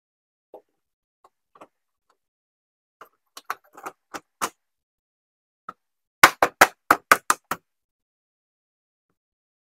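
Sharp plastic clicks and knocks from car door trim parts being handled and pressed back into place during reassembly: a few light taps, then a quick run of about seven loud clicks near the end.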